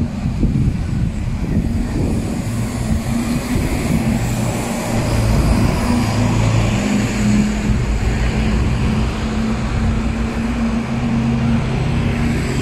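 Diesel engine of a double-decker bus running close by, a steady low hum that is loudest in the middle, over the general noise of street traffic.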